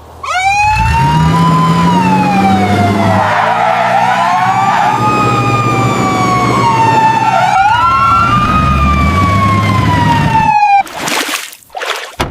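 Emergency vehicle siren wailing, its pitch rising and falling slowly, over a low vehicle engine hum; the siren cuts off near the end.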